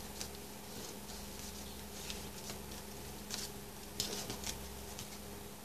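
Faint rustling and a few light ticks of paper as fingers press down the glued seam of a handmade paper envelope, over a steady low hum.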